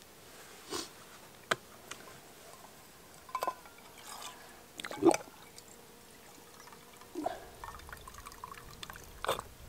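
Water poured from a plastic bottle in short glugs and drips, among scattered clicks and knocks of camp cooking gear. The loudest is a sharp knock about five seconds in.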